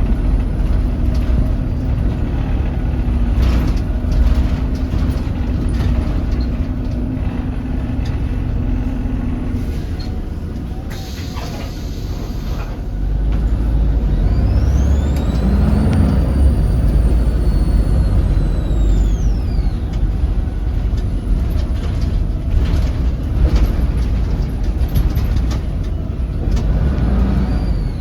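Volvo B7RLE bus diesel engine running under way. About halfway through, a high turbo whistle rises as the engine pulls, holds for several seconds and then falls away: the whistly turbo this bus is known for. A short hiss of air comes a little before it.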